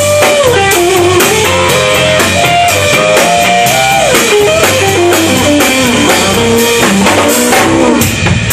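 Blues band playing: an electric guitar takes a lead line with bent, sliding notes over a steady drum beat and a walking low bass line.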